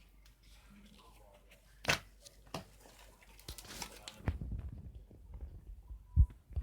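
Slime being squeezed and pressed by hand: scattered sticky clicks and pops, a sharp pop about two seconds in, then a faster run of low squishing crackles in the second half, with a loud thump near the end.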